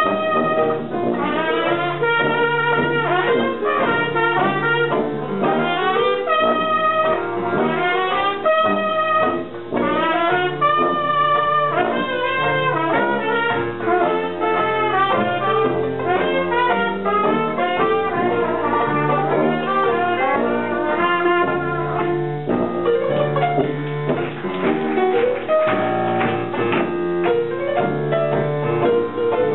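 Hot jazz band playing, with trumpet and trombone out front over a low bass line. In the last few seconds the brass drops back and the texture turns more choppy and percussive.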